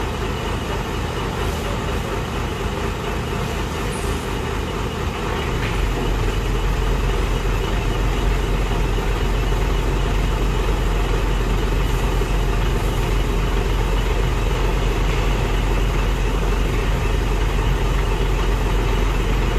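A motor vehicle's engine running steadily with a heavy low rumble, which grows louder about five and a half seconds in.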